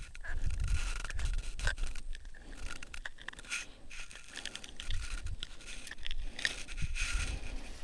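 Scraping and rustling with scattered short clicks as gloved hands handle a small fish and work a lure's hook out of its mouth, over a steady low rumble.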